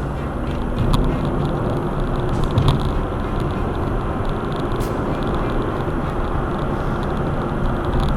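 Car driving at road speed: steady tyre and road noise with the engine underneath, and a couple of brief knocks from bumps in the road about one and two and a half seconds in.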